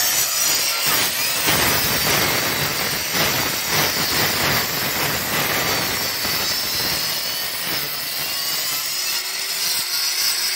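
Makita handheld electric masonry saw cutting into cement pavement, running steadily under load with a harsh grinding whine.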